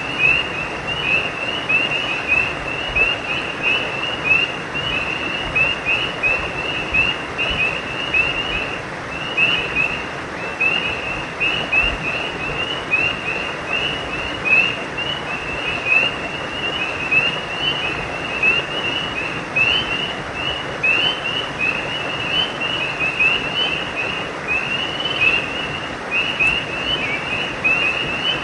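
Chorus of frogs calling: many short, high, chirping calls overlapping in a nearly unbroken stream, over a steady rushing background.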